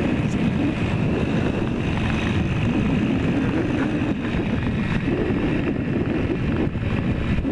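Yamaha RD400 two-stroke twin running at steady road speed, heard from the rider's helmet with heavy wind rush on the microphone.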